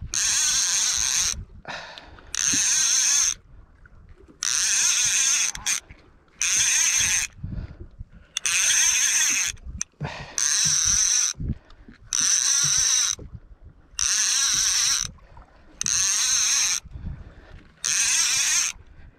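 Fishing reel being cranked in about ten short bursts of winding, each about a second long with brief pauses between: line being reeled in stroke by stroke while playing a big hooked fish.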